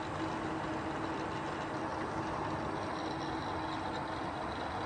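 Steady mechanical hum with a faint steady tone running through it that fades out about three seconds in.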